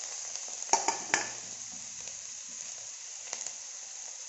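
Grated bottle gourd sizzling as it fries in hot ghee in a pan, with a steady hiss. A spoon stirring it knocks against the pan twice about a second in and once more, more lightly, near the end.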